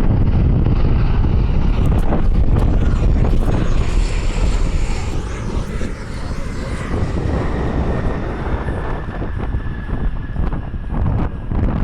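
Jet airliner passing on its approach, its engines a dense rumble with a thin whine that falls slightly in pitch, loudest in the first half and then fading.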